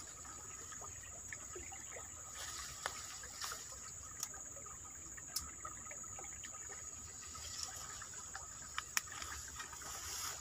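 Quiet outdoor background in bamboo undergrowth: a steady high hiss under scattered small clicks and snaps of stems and brush being handled and stepped through.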